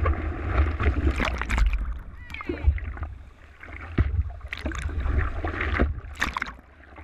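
Water sloshing and splashing against a surfboard-mounted camera, with irregular splashes over a steady low rumble of wind and water on its microphone.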